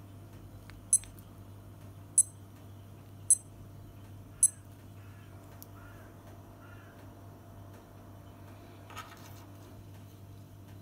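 Casio W-34 digital watch (module 415) beeping its alarm: four short, high-pitched electronic beeps about a second apart, which then stop.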